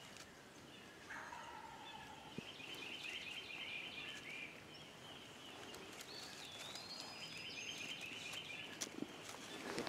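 Wild turkey gobbler gobbling faintly in the distance, a rattling call repeated a few seconds apart, with songbirds whistling.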